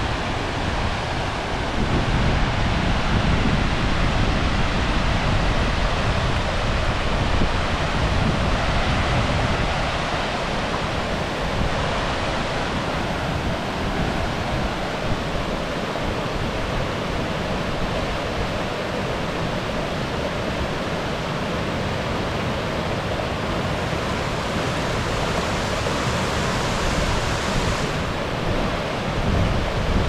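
A two-tiered waterfall pouring steadily: a dense, even rush of falling water. Wind buffets the microphone with a low rumble during roughly the first third, easing after that.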